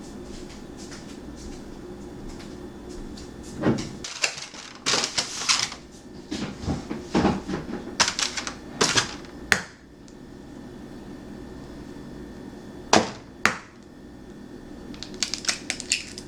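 Clatter of cooking utensils being worked at a street-food toast stall: a run of sharp knocks and scrapes, two loud knocks a little later and a quick series of clicks near the end, over a steady low hum.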